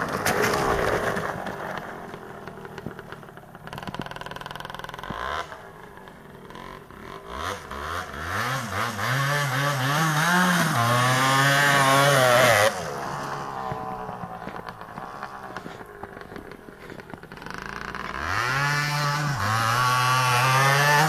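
Suzuki TS two-stroke dirt bike engine revving in repeated bursts, its pitch climbing and falling as the throttle opens and closes. It is loudest a little past the middle, then drops off sharply and builds again near the end.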